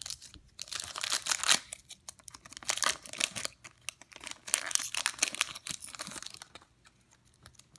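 Hockey card pack wrapper being torn open and crinkled by hand: a run of quick ripping and crackling noises that stops about six and a half seconds in.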